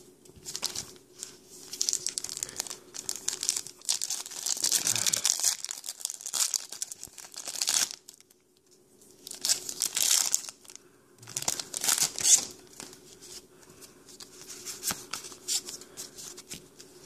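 Foil Pokémon trading-card booster pack wrappers crinkling and tearing as they are opened by hand, in irregular bursts, with a short quiet pause about eight seconds in.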